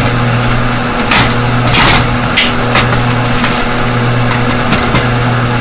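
Stove fan running with a steady, loud motor hum. Several brief rustling and handling noises sound over it in the first three seconds.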